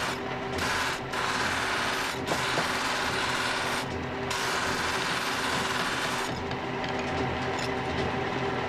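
A scissor-eye polishing stand's spinning abrasive wheel humming steadily while steel scissor eyes on a guide rod are pressed against it, giving a rasping grinding noise. The grinding breaks off briefly several times as the work is lifted from the wheel, and stops for the last couple of seconds while the wheel keeps running.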